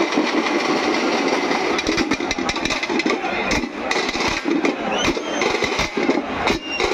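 Fast, dense drumming from a troupe of drummers on frame drums and barrel drums, a continuous rattle of rapid strokes.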